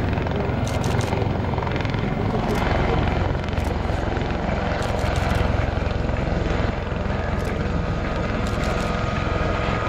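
MV-22B Osprey tiltrotor in conversion mode, nacelles tilted up, its two prop rotors and Rolls-Royce Liberty turboshaft engines running with a steady, deep rotor thrum and engine noise.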